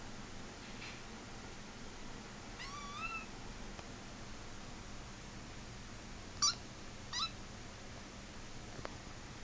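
A white kitten meowing three times: one longer meow about three seconds in that rises and then falls in pitch, then two short, high meows less than a second apart.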